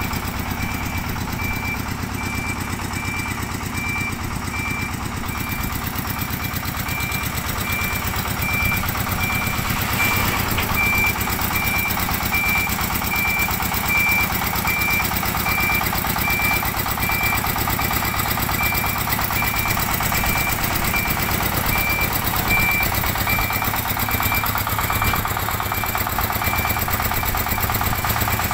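Diesel engine of a small farm dump truck running steadily as its hydraulic dump bed tips up, with a high electronic beeper sounding about twice a second throughout.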